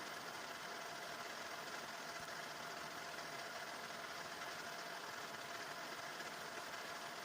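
Metal lathe running steadily while facing a 40 by 40 mm square bar held in its chuck, a steady machine hum with the cutter working the uneven surface.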